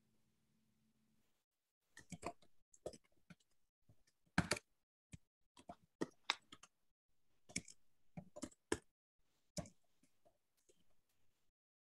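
Keys of a computer keyboard clicking as someone types, in uneven runs of keystrokes with short pauses, starting about two seconds in.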